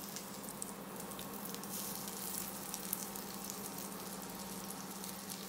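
Chicken gilafi kebabs frying in butter, a steady sizzle with small crackling pops.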